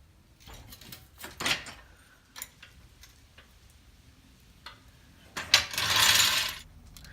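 Hand tools being handled against metal: scattered clicks and clinks, then a loud rasping burst of about a second near the end.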